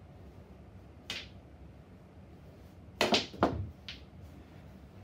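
Cue tip striking the cue ball on a small tabletop pool table, one sharp click about a second in, then the loudest part around three seconds in: a quick run of sharp clacks as the balls knock against each other and the table's rails.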